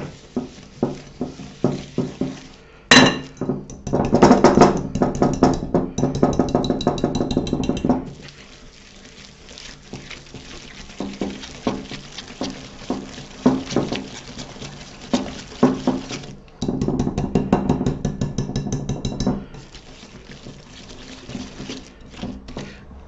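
Steel wire whisk clinking and scraping against a glass bowl as it beats a thick paste of softened butter and sugar, in quick repeated strokes. It gets louder and busier for a few seconds about three seconds in and again about sixteen seconds in.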